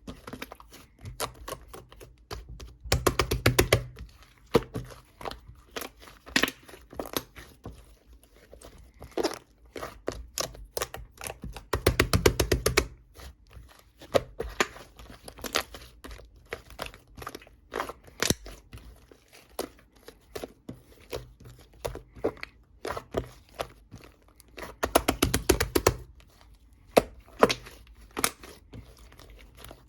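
Close handling sounds: scattered clicks, crinkles and taps, with three bursts of rapid clicking about three, twelve and twenty-five seconds in.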